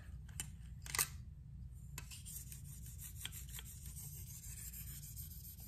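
A sharp click about a second in, then a run of light, quick scraping strokes as a 1500-grit diamond hone in a KME guided sharpener is drawn along an AUS-10 steel knife edge.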